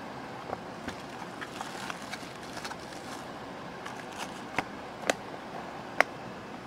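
Steady hiss with irregular sharp clicks and ticks scattered through it; the loudest three come in the second half.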